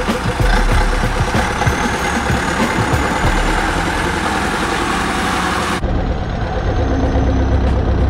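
Zetor 7341 Super Turbo tractor's turbo diesel engine running steadily. About three-quarters of the way through, the sound changes abruptly to a closer, deeper engine drone.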